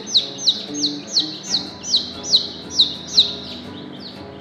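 Two-day-old chick peeping repeatedly, about three sharp, falling peeps a second, which stop near the end.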